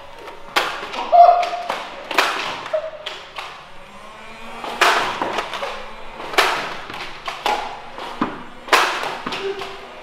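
Nerf blasters firing foam darts: about a dozen sharp, irregular thumps and taps, roughly one a second.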